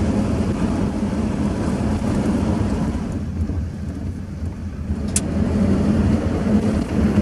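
Ford F-250 pickup truck driving on a rough gravel road: a steady low engine hum under heavy road and tyre rumble, easing a little in the middle before building again, with one sharp tick about five seconds in.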